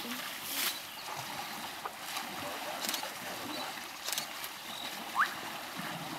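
Water sloshing and splashing as elephants wade and drink in a muddy waterhole, with a few sharper splashes and a short rising whistle about five seconds in.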